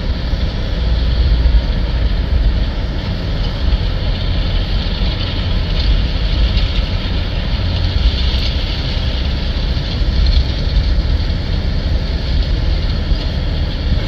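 John Deere tractor's diesel engine running steadily under load as it pulls a planter across the field, a continuous low rumble.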